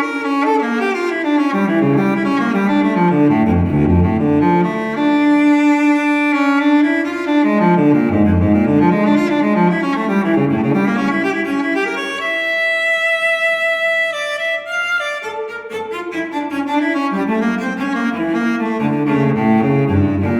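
Background music: orchestral strings with cello and double bass playing a slow, moving melody, with descending bass lines.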